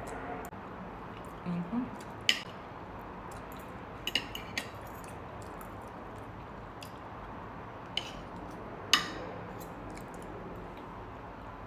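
Cutlery clinking and scraping against a plate: sharp clicks at irregular intervals, a few close together, the loudest about nine seconds in.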